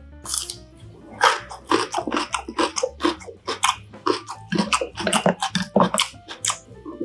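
A person chewing a mouthful of mushroom-and-dumpling hotpot close to the microphone: a rapid, irregular run of short wet clicks, squelches and light crunches.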